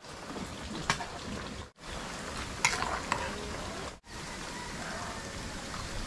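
Food frying in hot oil with a steady sizzle, with a few sharp clicks of a utensil.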